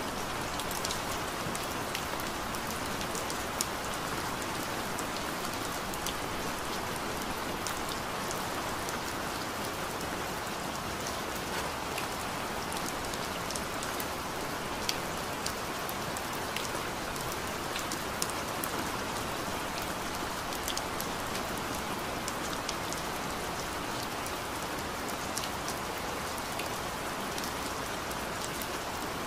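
Steady rain, an even hiss with scattered small drop ticks.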